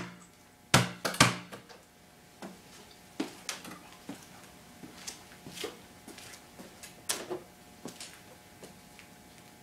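A basketball inflated to 7 PSI hits a concrete floor after a 6-foot drop: a sharp bounce about three-quarters of a second in and a second, similar bounce about half a second later. Fainter scattered taps follow over the next several seconds.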